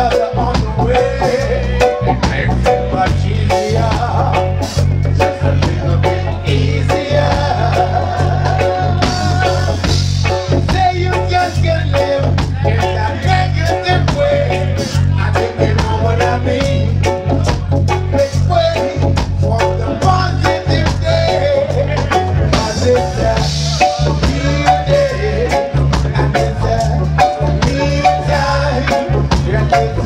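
Live reggae band playing: a heavy bass line under drums and hand percussion, with electric guitar, a Roland Juno-Di keyboard and vocals from the singers.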